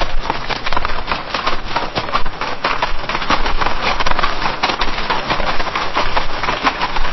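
Horse galloping on a dirt path, hoofbeats in a quick, unbroken drumming rhythm.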